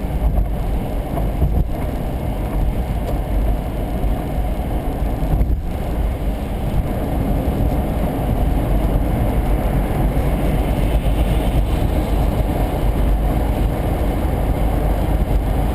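Steady road noise inside a car's cabin on a highway: a low rumble of tyres and engine with a hiss over it, growing slightly louder in the second half as the car speeds back up.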